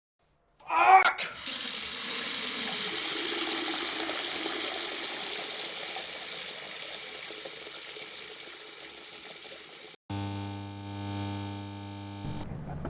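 Steady rush of running water, like a tap or shower, beginning about a second in with a brief loud sound of wavering pitch and slowly fading. It cuts off suddenly about ten seconds in and is replaced by a steady low droning tone with several pitches.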